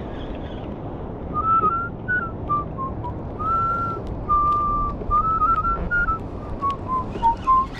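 A person whistling a tune: a single clear pitch stepping up and down through short and held notes, drifting lower toward the end, over a steady low background rush.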